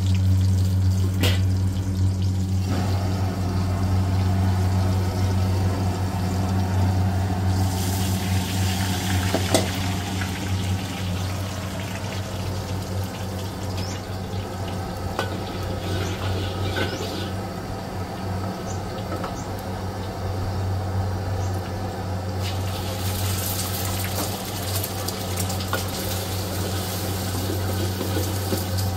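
Water splashing and hissing in a hot wok over a steady low hum, with a brighter sizzling hiss rising about a third of the way in and again near the end.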